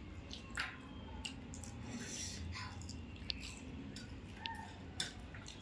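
People chewing and biting into momos, faint mouth and eating noises with scattered small clicks over a low steady room hum.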